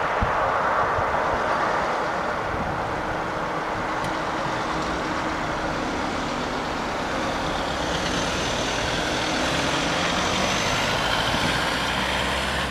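Road traffic at a level crossing: car and van engines running as vehicles pull away across the tracks, with tyre and engine noise building about two-thirds of the way through.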